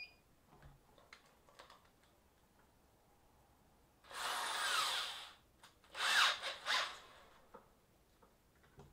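Corded electric drill run in short bursts: one run of just over a second, then three quick trigger pulses, the motor spinning up and winding down each time.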